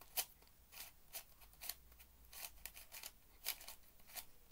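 Plastic twisty puzzle being turned by hand: about a dozen faint, short clicks and snaps of its layers, irregularly spaced.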